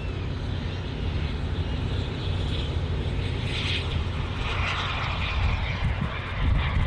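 Steady low engine rumble and drone, with a rushing hiss that swells about three seconds in and eases off near the end.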